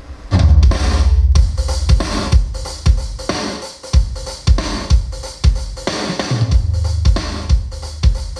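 Music with a heavy kick drum at about two beats a second and deep, sustained bass notes, played loud through a PA system of large speaker cabinets and subwoofers as a test of the system after calibration.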